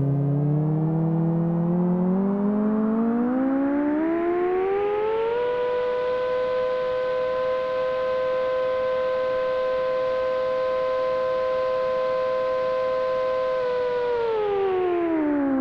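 Electronic synthesizer tone with rich overtones, gliding slowly upward in pitch for about five seconds, holding one steady pitch, then sweeping sharply downward near the end.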